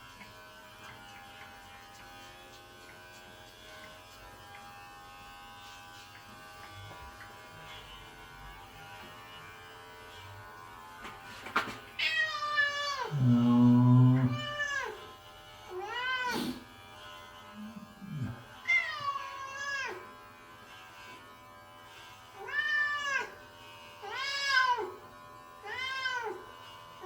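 An electric pet clipper runs with a steady hum while a cat is shaved. About halfway through, the cat starts meowing loudly and repeatedly, about eight rising-and-falling meows, the first long and the loudest.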